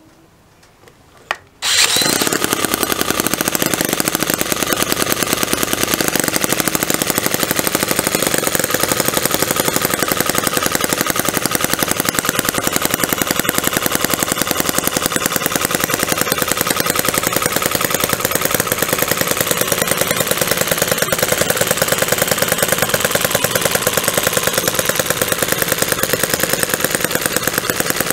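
MUSA F1 2.7cc model engine, started by a cordless drill on its pulley, catching about two seconds in and then running steadily with a rapid, even stream of firing pulses.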